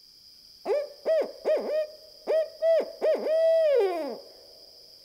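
An owl hooting: a rhythmic run of short hoots in two groups, the second ending in a long hoot that drops in pitch.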